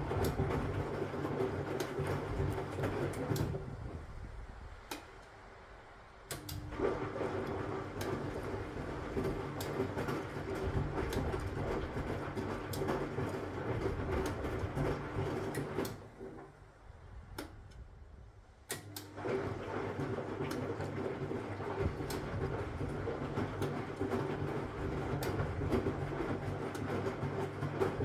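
Huwa Deluxe 65 drum washing machine in its wash action: the Hanning wash motor turns the drum with a steady hum while the laundry tumbles. The drum stops for about three seconds twice, once a few seconds in and once a little past halfway, and then starts again, turning the other way.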